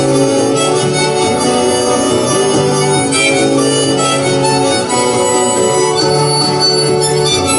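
Harmonica playing an instrumental break between sung verses, held notes and chords shifting every second or so, with guitar accompaniment underneath.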